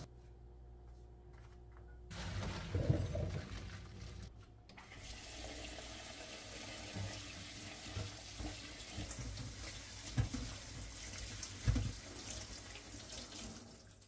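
Cold water running from a kitchen tap into a stainless steel sink, splashing over boiled noodles in a mesh strainer as they are rinsed and rubbed by hand. The water starts about two seconds in, breaks off briefly, then runs steadily, with a few soft knocks of handling in the second half.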